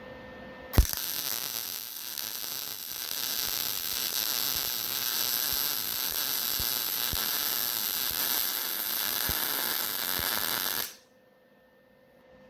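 Wire-feed welding arc: a sharp click, then an even, crackling sizzle for about ten seconds that stops abruptly.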